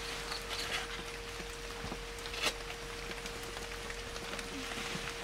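Asian elephants scooping and flinging mud in dense undergrowth: scattered crackling and pattering of mud and plants, with one sharper crack about two and a half seconds in, over a faint steady hum.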